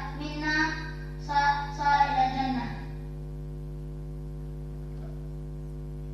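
A voice singing a melody, which fades out about three seconds in, leaving a steady low electrical hum.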